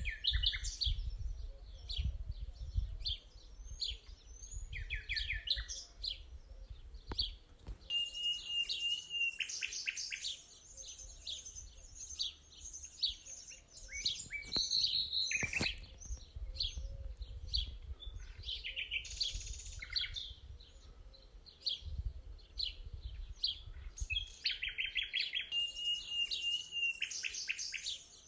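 Several wild birds singing and chirping in quick, overlapping calls and trills, including a held whistled note twice. A low rumble sits underneath at times.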